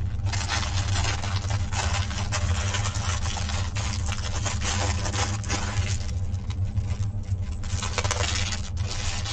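Clear plastic packaging of a diamond painting kit crinkling and rustling in irregular bursts as the bag and rolled canvas are handled. A steady low hum runs underneath.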